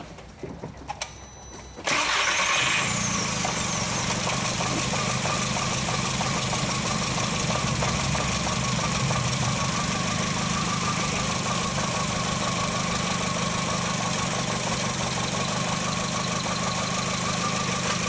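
A 2004 Volkswagen Jetta's 2.0-litre four-cylinder engine starting about two seconds in and settling into a steady idle. Its number 4 plug wire is off the coil for a spark test, and it has a misfire on cylinder 3 from a coil that is most likely bad.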